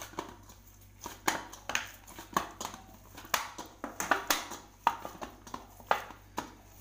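Hands kneading stiff wheat-flour dough in a stainless steel bowl: a run of short, irregular slaps and knocks, about two a second, as the oiled dough is pressed and folded against the bowl.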